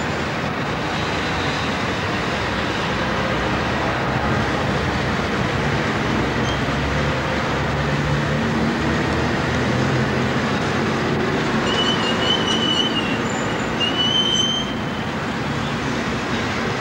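Vintage tram running along its track with road traffic passing alongside. A high wheel squeal sounds twice near the end.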